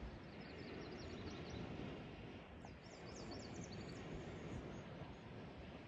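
Quiet steady outdoor background noise by the water, with two short runs of faint, high-pitched bird chirps, one near the start and one about three seconds in.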